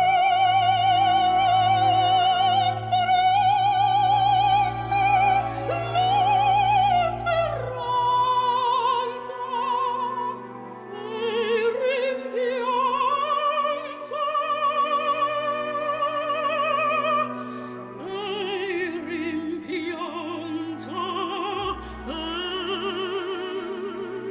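Operatic singing: long, high sustained notes with heavy vibrato over held low accompaniment.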